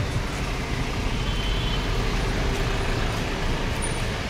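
Traffic on a busy city street: car engines running close by, a steady low rumble with road noise.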